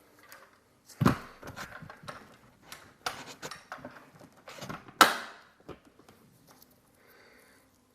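Clicks and knocks from handling a 1:24-scale diecast model car: three louder clicks about two seconds apart among softer taps, the last one ringing briefly.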